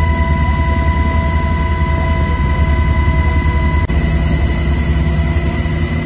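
Helicopter cabin noise: a loud, steady low rumble from the rotors and engine, with a high steady whine laid over it. One of the whining tones drops out about four seconds in.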